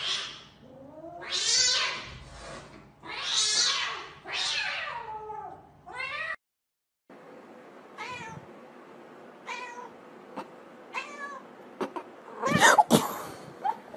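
Domestic cats in a face-off, yowling and meowing with four long, wavering cries in the first half. After a brief silence come fainter short meows, and a louder cry about a second and a half before the end.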